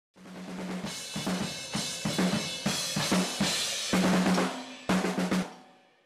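Drum-kit intro music: a busy run of snare and bass-drum hits under cymbals, the last hit ringing away over the final half second.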